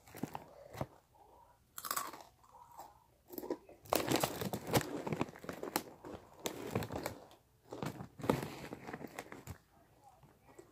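Takis rolled tortilla chips being bitten and crunched close to the microphone, in irregular crackly bursts, loudest about four to five seconds in.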